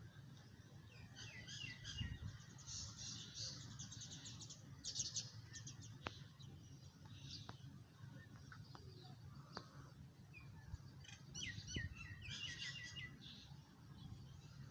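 Small birds chirping in quick, twittering rows of notes, in two bouts: one early and one about two-thirds of the way through. Under them there is a faint low background rumble and a few soft clicks.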